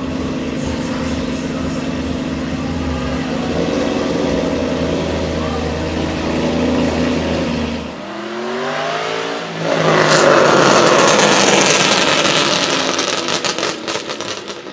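Aston Martin Vantage AMR Pro's 4.7-litre V8 running with a steady note, then rising in pitch about eight seconds in and going to a loud full-throttle run. Near the end the sound fades with a rapid string of exhaust crackles.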